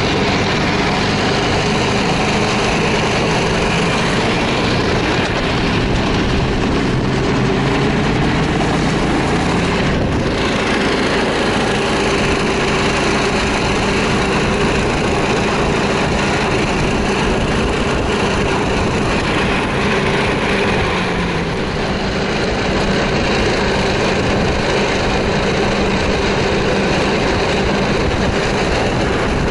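Snowmobile engine running steadily at travelling speed, heard from the cargo sled it is towing, over a steady rushing noise. It eases off slightly about three-quarters of the way through.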